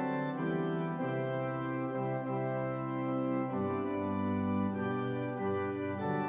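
Organ music playing slow, held chords that change about once a second.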